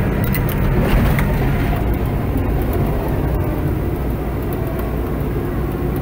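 Crawler bulldozer's diesel engine running steadily, heard from inside the cab, with scattered sharp clicks mostly in the first couple of seconds.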